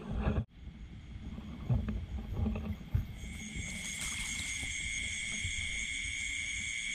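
Steady high insect chirring in the rice paddy, coming in about three seconds in, over low knocks and rustling of handling or wading.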